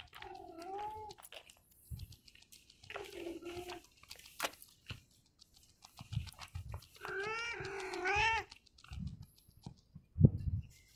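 Ginger tabby cat meowing four times: once at the start, once about three seconds in, and twice close together a little past halfway. Between the meows come low thumps of footsteps on concrete, the loudest near the end.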